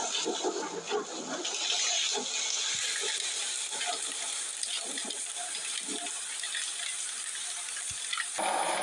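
Water rushing steadily, a continuous hiss-like gush, with the sound changing abruptly near the end.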